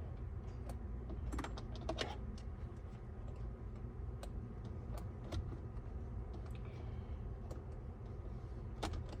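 Irregular small clicks and taps of a hand tool working the screws at the back of a steering wheel, over a low steady hum.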